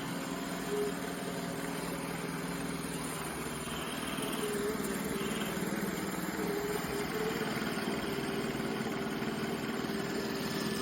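iRobot Roomba j7+ robot vacuum running: a steady motor hum with a few held tones, getting slightly louder about four seconds in.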